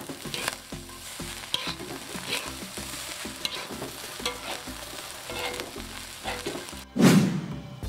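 Nasi goreng being stir-fried in a hot wok: steady sizzling, with a spatula scraping and tossing the rice about every half second. A brief loud burst of noise comes near the end.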